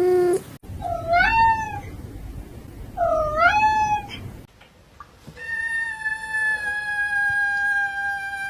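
A domestic cat meowing: two short meows that rise then fall in pitch, then one long meow held for several seconds.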